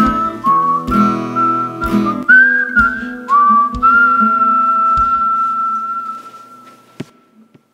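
Closing bars of a song: a whistled melody over guitar chords and a low drum beat, ending on one long held whistled note that fades out. A short click follows near the end.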